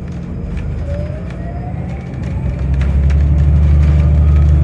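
City bus engine and drivetrain heard from inside the cabin: a steady low hum that swells and grows louder about two seconds in as the bus picks up speed, with a faint rising whine.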